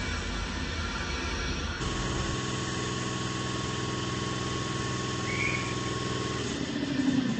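A compressor running under test with a steady hum and a thin steady whine above it. Near the end its pitch drops as it winds down.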